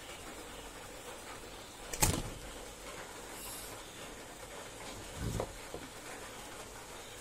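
Hand-tool handling on a chainsaw recoil starter: pliers and the plastic starter pulley knock and click while the old rope is worked out. There is a sharp click about two seconds in and a duller knock about five seconds in, over a faint steady hiss.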